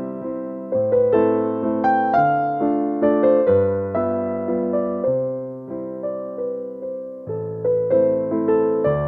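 Background music: a slow, gentle piano piece with single melody notes struck a few times a second over low bass notes that change about every second and a half.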